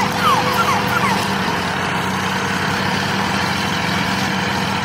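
A mini tractor's small motor running steadily at an even pitch. A few short, high, gliding chirps come in the first second.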